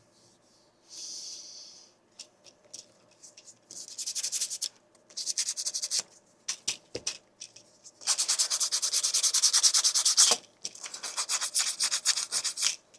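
Sandpaper rubbed by hand along the edge of a 3D-printed plastic claw to smooth it, in short runs of quick back-and-forth rasping strokes, the longest and loudest lasting about two seconds in the second half.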